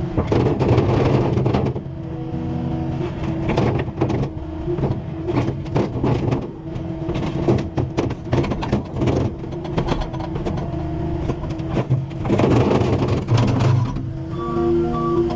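Skid steer's diesel engine running and revving under load, with frequent knocks and rattles of the machine working; the engine surges about a second in and again near the end.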